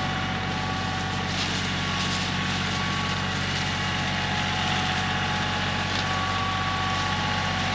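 Engine running steadily at an even speed, with no change in pitch or level.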